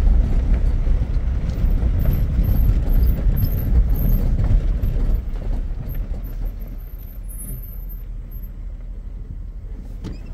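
Vehicle driving, a steady low rumble of engine and tyres that eases off about halfway through.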